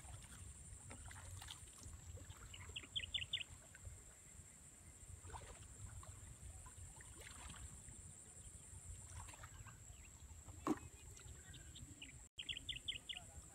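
Faint outdoor water sounds of people wading and groping in a shallow pond, with light sloshing and small splashes over a low rumble. Twice, about three seconds in and again near the end, a bird gives a quick run of four or five high chirps.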